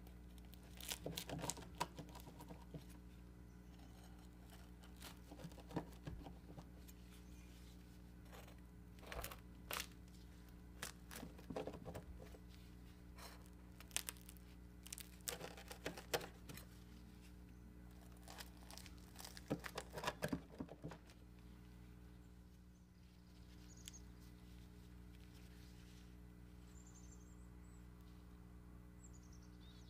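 Crisp, flaky crust of a baked layered cheese bread crackling and crunching as a large knife cuts through it on a wooden board, in several short bursts over the first twenty seconds; after that only a faint steady hum remains.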